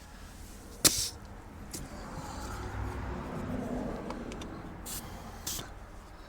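Compressed air filling a backhoe's 11L16 front tire through an air chuck: a low, steady rush of air that swells in the middle, with a sharp click about a second in and a few lighter ticks.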